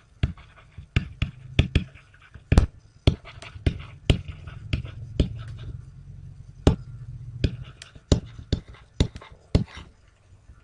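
Irregular sharp clicks, a couple of dozen, from handwriting being drawn onto a computer slide with the mouse or pen input, over a low steady hum that fades near the end.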